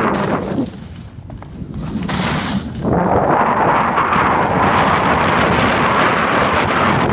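Skis scraping and sliding over snow, with wind buffeting the microphone. The scraping hiss fades briefly, then grows loud and steady from about three seconds in.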